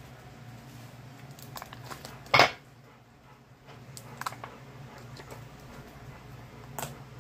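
Fingers poking and pressing slime, giving scattered soft clicks with one sharper click about two and a half seconds in.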